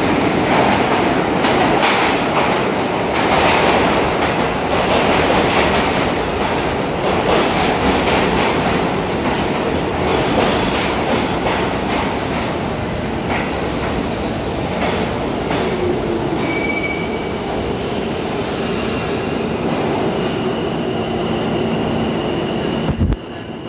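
R46 subway train pulling into an underground station and slowing to a stop: a loud rumble and clatter of wheels on rail that eases off over the second half. A brief high squeal comes about two-thirds of the way through, then a steady hum as the train comes to rest, and a knock just before the end.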